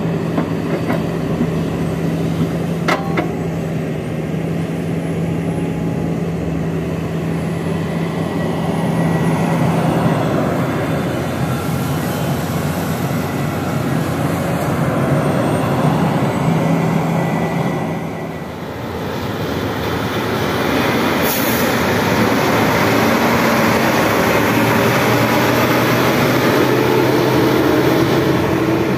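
Heavy diesel engines of a Sany crawler excavator and a dump truck running steadily while the truck's raised bed tips out soil, with a sharp knock about three seconds in. After a brief dip, a dump truck's diesel engine runs steadily.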